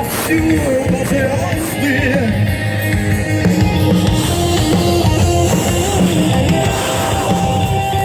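Live rock band playing a song with sung vocals over guitars and drums.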